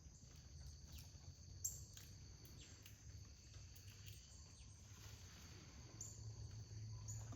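Near silence: a faint, steady, high-pitched insect drone, like crickets, with a few faint clicks and a low hum underneath.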